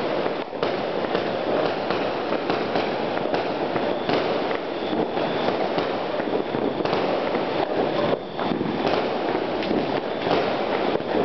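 Many fireworks going off at once all around, a dense, unbroken barrage of overlapping bangs and crackles.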